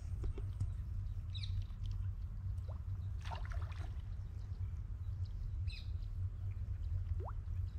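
Steady low rumble of wind on the microphone, with a few faint, brief bird chirps about a second and a half in and again about six seconds in.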